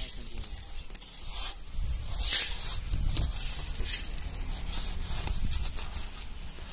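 Metal scoop scraping through granular salt in a metal pan and pouring it out, with the woven plastic sack rustling as it is handled: a run of short, irregular scrapes and rushes of grains.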